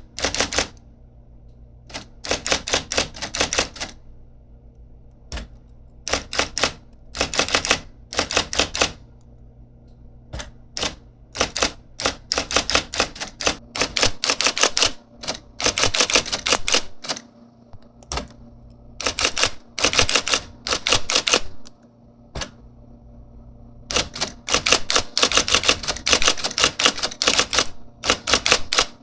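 IBM Selectric III electric typewriter being typed on: runs of rapid, sharp keystroke strikes from its typing element, broken by short pauses. Its motor hums steadily underneath.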